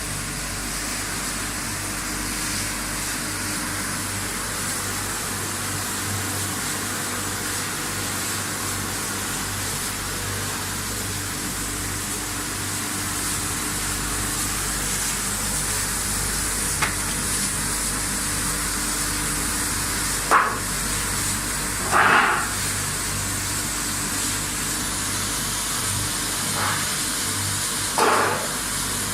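Stainless steel plastic-basket washing machine running: a steady motor hum under the hiss of water spraying. A few short knocks in the second half, the loudest about two-thirds of the way through.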